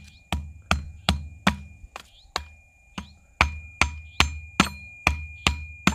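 A hatchet tapping repeatedly on the top of a wire-bound bundle of wooden stakes, driving it into the ground. About two to three sharp knocks a second, with a brief pause near the middle.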